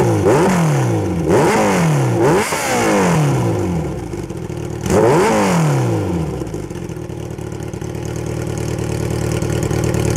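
Kawasaki ZX14R inline-four engine through an Extremeblaster XBST dual slip-on exhaust, right baffle removed and left slash cap fitted over seven disks. The throttle is blipped in a quick series over the first few seconds and once more about five seconds in, the revs falling back each time. The engine then settles to idle.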